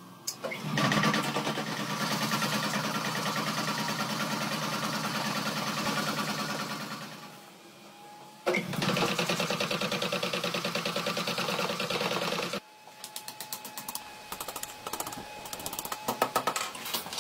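A power hammer pounding hot steel in a fast, steady rhythm, in two long runs. After these come separate, uneven hand-hammer blows on an anvil.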